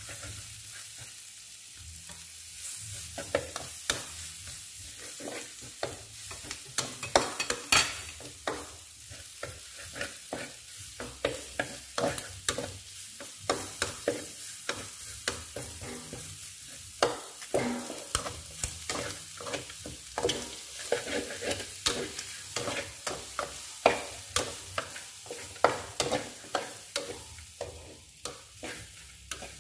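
Chicken and sliced chilies frying in oil in a wok with a steady sizzle, while a metal spatula stirs them, scraping and clacking against the pan again and again at an irregular pace.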